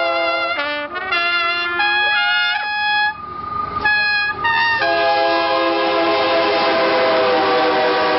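Two trumpets play a mariachi melody in short, changing notes. About five seconds in, a long held note begins, with the rushing noise of a diesel locomotive passing close by growing beneath it.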